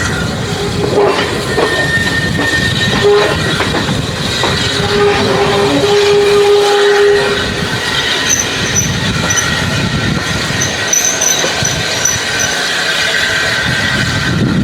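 Heritage railway train running on the rails, its wheels squealing in steady high tones that shift higher about halfway through, over a rolling rumble.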